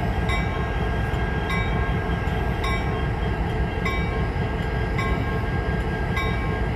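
Type 3 Safetran electronic crossing bell ringing about twice a second over the low rumble of the Illinois Central 1003 diesel locomotive rolling slowly through the crossing.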